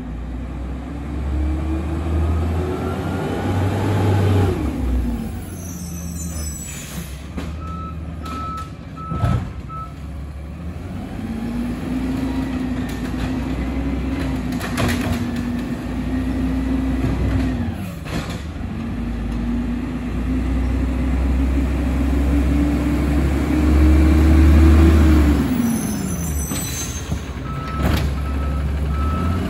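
Diesel engine of an automated side-loader garbage truck revving up and falling back in long swells as it works the street, with a few sharp clanks. A run of high, evenly spaced beeps sounds twice: once near the middle and again near the end.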